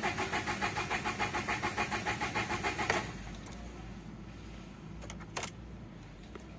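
Starter motor cranking a Renault Duster's diesel engine with a fast, even chugging rhythm for about three seconds, then stopping abruptly. It is followed by a quieter steady hum and a single click. The car starts only intermittently, a fault later traced to a failing crankshaft position sensor (code P0336).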